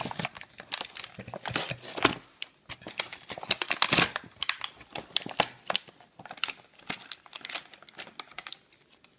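Toy packaging being torn open and crinkled by hand: a quick, irregular run of crackles and rips, loudest about two and four seconds in, and thinning out near the end.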